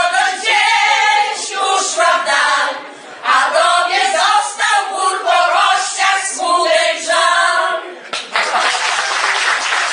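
A women's choir singing the last phrases of a song, ending about eight seconds in, followed by an audience applauding.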